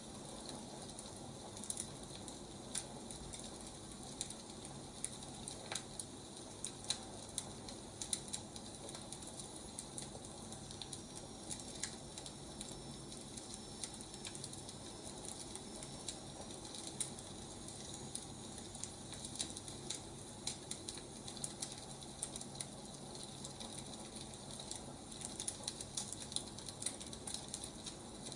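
Firewood burning, with irregular small crackles and pops over a steady soft hiss.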